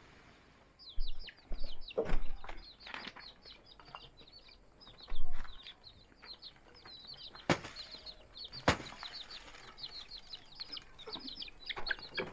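Hungry young chickens peeping continuously, a rapid run of short, high, falling peeps that starts about a second in. It is broken by a few louder thumps and rustles early on and about five seconds in, and by two sharp clicks.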